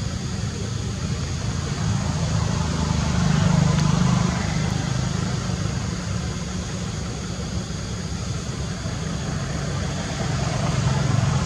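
Steady low rumble, swelling about three seconds in and again near the end.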